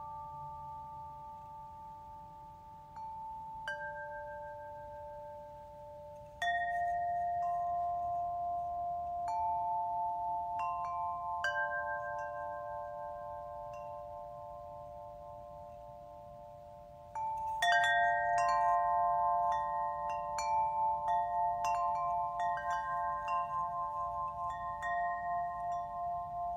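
Small chime bells ringing, several clear notes held and slowly fading. A fresh cluster of strikes comes about a quarter of the way in, a louder one just past the middle, then a run of lighter strikes to the end.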